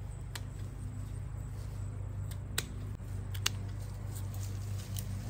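Dry pepper plants being pulled up by hand from a raised bed: rustling with a few sharp snaps of brittle stems, over a steady low hum.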